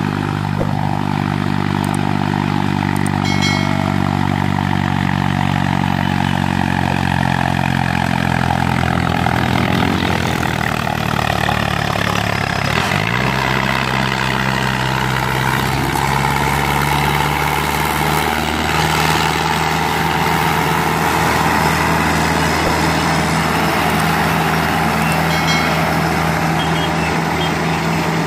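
Mahindra Arjun 605 DI tractor's diesel engine running steadily under load as it hauls two loaded sugarcane trolleys past. Its note drops in pitch about halfway through as it goes by.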